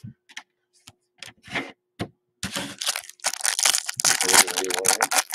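A few soft clicks, then, from about two and a half seconds in, the foil wrapper of a Topps Chrome trading-card pack crinkling and tearing as it is ripped open by hand.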